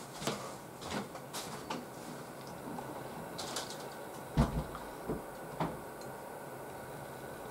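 Drinking from a glass of water: a few swallows about four to six seconds in, the first a low thump, after scattered small clicks and knocks of the glass being handled.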